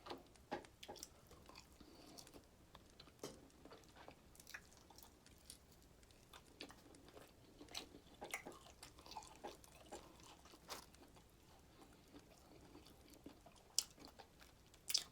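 Faint chewing and biting of fried food: scattered soft crunches and wet mouth clicks at an irregular pace.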